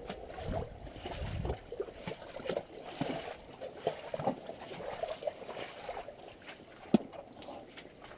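Footsteps over mud, stones and dry sticks along a river bank, with gusts of wind buffeting the microphone in the first second or so. A single sharp click comes about seven seconds in.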